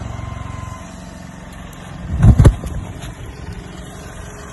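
Petrol poured over an electric scooter catching fire: one sudden loud, low whoosh about two seconds in, after a low rumble that fades in the first second.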